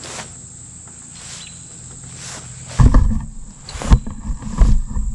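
Rope rustling and sliding as it is worked through a carabiner into a munter hitch, with loud low thumps and rumbling from about three seconds in that last about two seconds. Crickets chirp steadily throughout.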